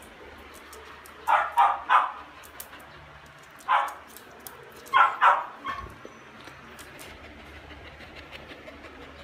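A dog barking in short bursts: three quick barks a little over a second in, a single bark a couple of seconds later, then two more barks close together.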